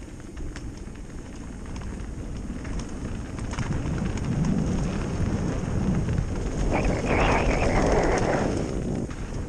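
Mountain bike tyres rolling fast over a dirt and gravel trail, heard from a helmet camera: a steady rumble with wind on the microphone and scattered clicks of stones and bike rattle. About seven seconds in, a louder rush of gravel noise lasts about two seconds.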